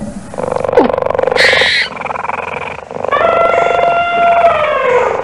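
Wild animal calls: a buzzy, pulsing call starting about half a second in, then a long drawn-out call held level for over a second that drops in pitch near the end.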